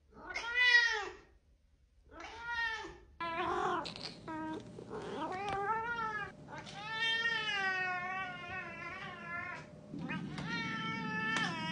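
Domestic cat meowing over and over. A short, very loud meow comes right at the start. A run of drawn-out, needy meows follows, the longest lasting about three seconds.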